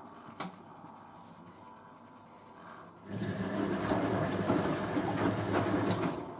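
Hoover A3060 Electronic 1100 washing machine in its rinse: after a quieter pause with a single click, the drum starts a gentle tumble about three seconds in, motor hum with the wet bedding turning over, and stops near the end.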